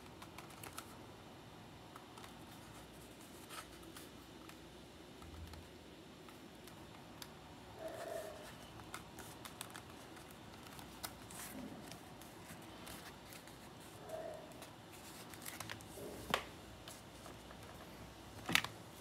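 Faint rustling and small clicks of leather pieces being handled and pinched together by hand along a glued edge, with a few sharper taps, the loudest a short knock near the end.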